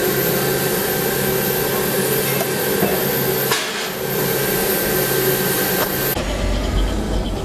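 Loud, steady machinery noise with a hiss and a few held tones. About six seconds in it changes abruptly to a low rumble.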